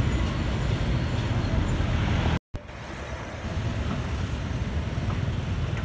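Busy street-market background noise: a steady low rumble of traffic and crowd hubbub, broken by a moment of dead silence about two and a half seconds in.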